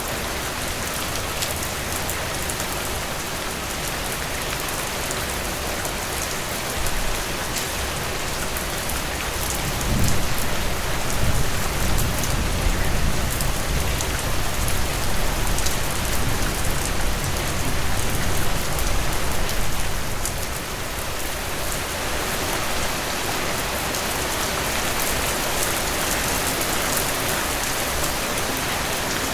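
Heavy rain falling steadily in a dense, even downpour. About a third of the way in, a low rumble of thunder swells under the rain and fades out about two-thirds of the way through.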